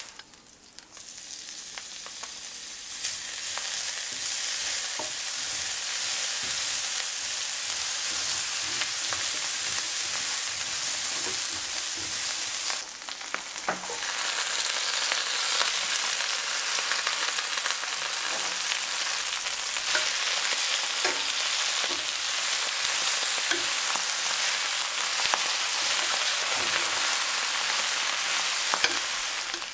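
Stir-frying in a stainless steel skillet: a steady sizzle that builds over the first couple of seconds. It dips briefly about halfway, as pea shoots go into the pan, then sizzles on with small clicks and pops as the greens are turned with tongs.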